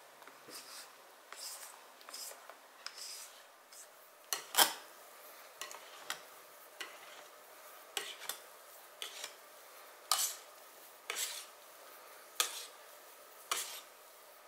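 Wire balloon whisk stirring thick batter in a glass mixing bowl. Soft swishes at first, then from about four seconds in the whisk's wires clink sharply against the glass roughly once a second.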